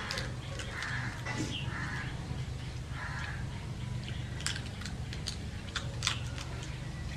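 Hand-eating sounds of rice and prawn curry: chewing, lip smacks and several sharp mouth clicks in the second half, over a steady low hum. A few short bird calls sound in the first half.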